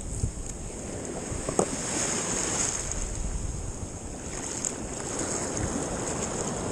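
Surf washing up the beach, with wind buffeting the microphone.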